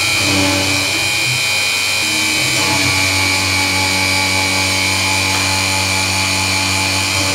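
BF20 milling machine end-milling aluminium, its belt-driven spindle, powered by a three-phase motor on a speed controller, running with a steady high-pitched whine and a low hum. The cutting tone shifts about two seconds in as the cut changes.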